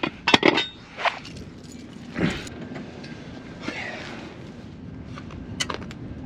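A series of sharp metallic clanks and knocks: several close together in the first two and a half seconds, then one more near the end.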